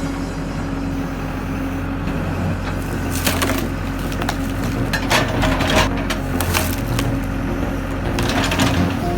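Excavator engine running steadily while wood cracks and splinters several times as the bucket forces logs apart.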